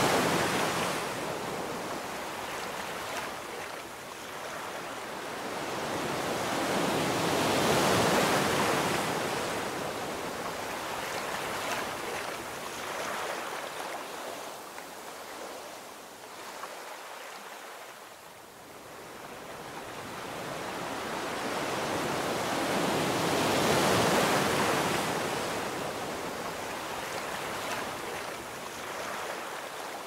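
Sea surf breaking and washing up on a beach, rising and falling in slow swells: loudest at the start, about eight seconds in and again around twenty-four seconds, with a quiet lull a little past halfway.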